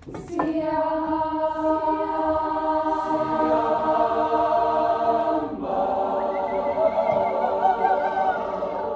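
Student choir singing a long held chord a cappella, moving to a new chord a little past halfway, with one upper voice wavering near the end.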